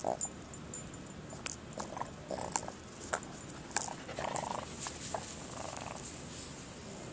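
A dog snuffling and sniffing close to the microphone in several short bouts, with a few sharp clicks and knocks.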